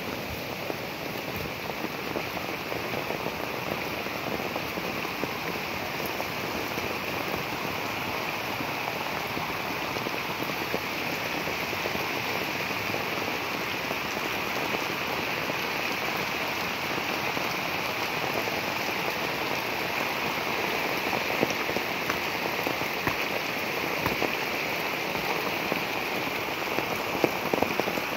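Heavy rain falling steadily on flooded paddy fields, an even hiss of rain on water, growing a little louder towards the end with a few sharper drop hits.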